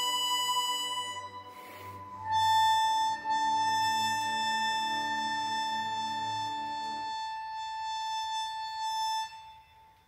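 Kongsheng Lyra chromatic harmonica with a Kettlewell Frictionless Mouthpiece slider: a held note that fades about a second in, a short breath, then one long held note that ends near the end, with lower notes sounding beneath it until about seven seconds in.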